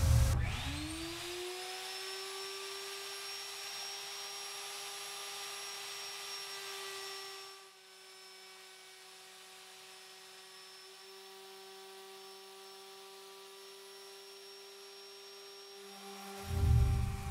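A woodworking power tool's motor starts with a low thump and spins up within about a second to a steady high whine, then runs on. After an abrupt cut about eight seconds in, a router table runs more quietly with a steady whine over a lower hum, and a low thump comes near the end.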